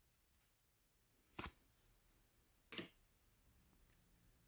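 Near silence, with two faint, brief clicks about a second and a half apart from handling trading cards and packs.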